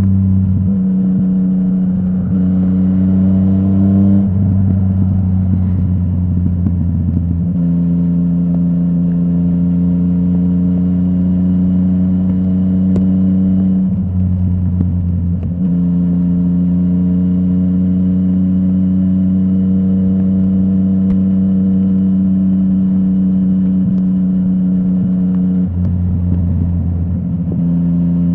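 Yamaha MT-09's three-cylinder engine running through a full Akrapovic exhaust. The engine note holds steady for long stretches and shifts in pitch and tone a few times.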